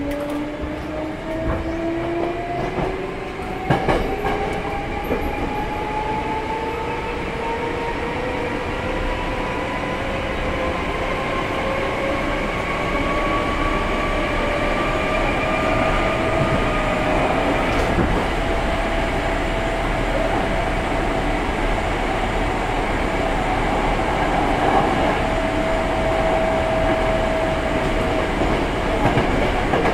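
Hankyu 6300 series electric train heard from inside the passenger car: the traction motors and gears whine, rising steadily in pitch as the train gathers speed for a little over half the time, then holding an even pitch at running speed. Wheel and track rumble runs underneath, with a couple of sharp knocks from the rails.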